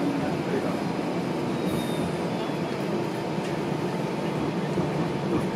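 Steady running noise inside a moving TTC Flexity Outlook streetcar: steel wheels rolling on the rails, with the car's motors and the body rattling along.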